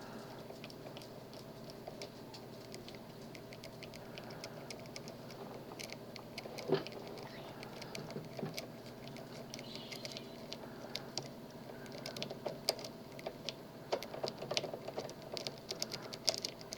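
A lock pick raking and rocking across the pin tumblers of a Master Lock M1XDBLF padlock under tension: faint, rapid scratchy clicks of the pins, busier in the second half, with one sharper click about seven seconds in. The lock has not yet opened.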